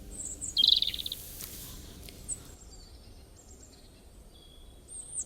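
Birds chirping: a rapid high trill about half a second in, a few scattered chirps, then louder chirping that jumps up and down in pitch near the end.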